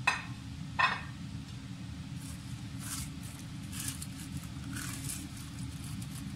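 Two sharp knocks about a second apart, then soft wet scraping and squelching as a plastic spatula pushes dry vermicelli bundles and chopped celery down into broth in a pot, over a steady low rumble.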